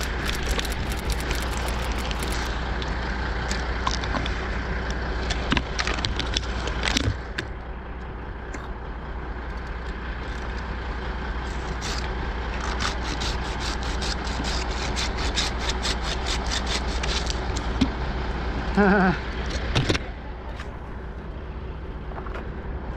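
Crane truck's engine running steadily, with scattered sharp clicks and knocks close by.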